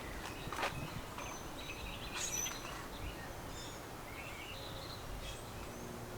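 Outdoor ambience: a steady low rumble of background noise with short, high bird chirps now and then, and two sharp clicks within the first second.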